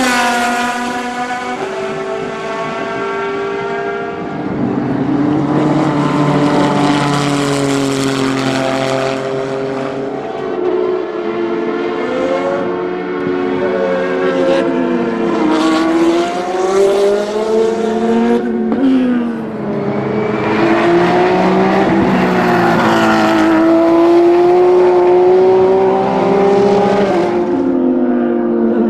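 LMP prototypes and GT1 race cars driving past one after another, their engines revving up and down through gear changes with a few lifts and downshifts.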